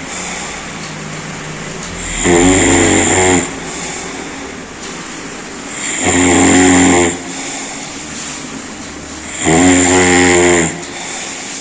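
A person snoring loudly: three long, deep snores, each about a second long, come about every three and a half seconds, with softer breathing between them.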